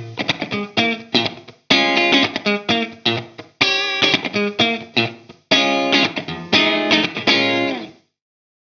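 SLX Hawk Classic 22 HSS electric guitar played alone, with picked notes and strummed chords in short phrases of about two seconds each. The playing stops near the end.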